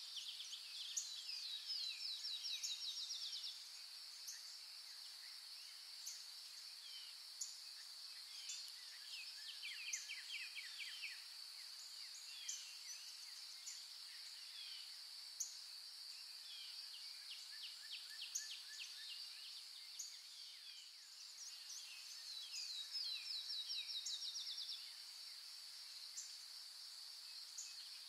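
Outdoor nature ambience: a steady high-pitched insect drone with birds calling over it. Birds give bursts of fast trills, loudest near the start and again near the end, with scattered short high chirps in between.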